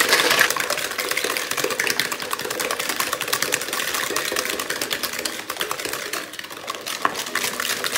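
Hand whisk beating egg and sugar in a plastic mixing bowl: a rapid, steady clatter of the whisk against the sides of the bowl.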